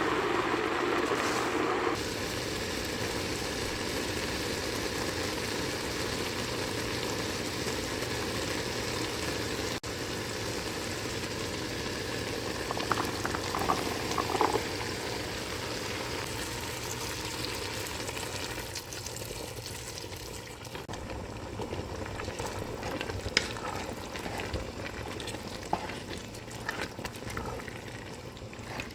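Food sizzling in a frying pan, a steady hiss with a few short clinks about halfway through. In the last third the sizzle quietens and breaks up into scattered crackles and scrapes.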